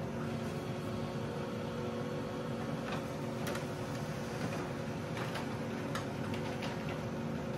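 Brother DCP-L2531DW laser multifunction printer running a copy job: a steady motor and fan noise with a low hum, and a few light clicks as the page feeds through.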